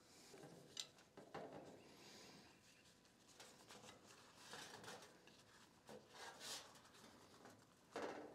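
Faint rustling and rubbing of a flour tortilla being folded and rolled into a burrito by hand on a plate, with a light tick about a second in.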